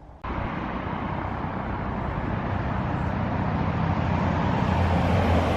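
Steady rush of road traffic noise, starting abruptly and growing gradually louder, with a deeper engine hum swelling near the end.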